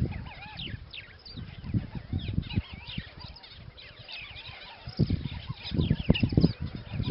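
Many small birds chirping and calling in short rising and falling notes. Under them is irregular low rumbling from wind on the microphone, loudest a little past the middle.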